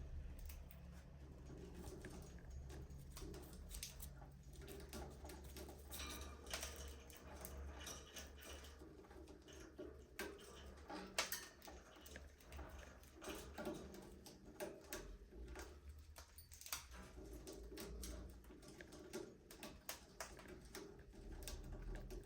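Budgerigars chirping and chattering softly, with many scattered clicks and scratches, over a low steady hum.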